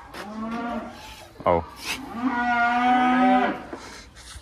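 Bulls and heifers mooing over one another, waiting for their crushed-grain feed, with the longest call in the second half.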